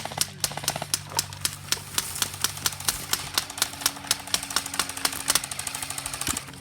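Airsoft guns firing: a steady run of sharp shots about five a second, quickening to roughly ten a second in the second half, over a low steady hum.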